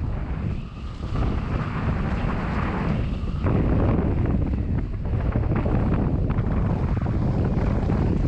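Heavy wind buffeting the microphone of a camera on a Hobie 16 catamaran sailing fast in strong wind, over the rush of water and spray along the hulls. The buffeting eases briefly a couple of times.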